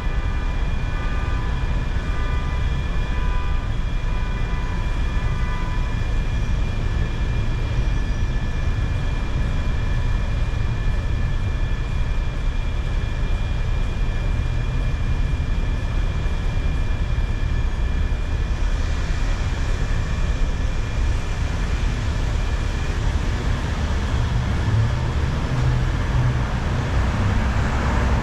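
A car driving on city streets: a steady low rumble of road and engine noise with a few faint steady high whines over it. A hiss of passing traffic builds in the last third, and a deeper engine rumble swells near the end.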